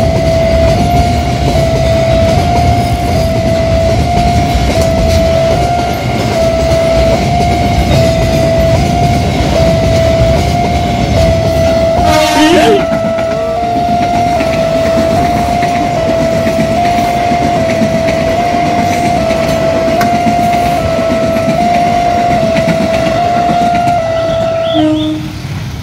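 Container freight train running past on the rails with a dense, loud rumble, while the level-crossing warning alarm sounds a repeating two-note chime about once a second. A brief sharp noise with a short pitch glide comes about halfway through, and the alarm cuts off shortly before the end.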